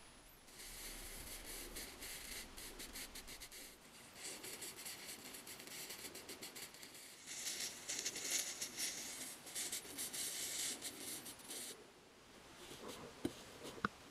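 Crackling fizz of electrochemical etching: an electrolyte-soaked cotton swab electrode, powered from a 24 V supply, is dabbed over the stencil on a steel cleaver blade. It starts about half a second in, eases off briefly around four seconds, is loudest in the second half and stops a couple of seconds before the end, followed by a few faint handling clicks.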